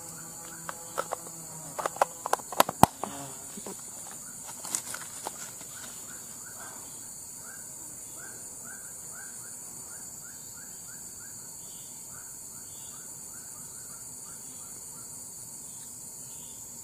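Steady high-pitched drone of insects, with a cluster of sharp clicks and knocks in the first few seconds as the bait is handled. From about six seconds in, short rising chirps repeat a few times a second.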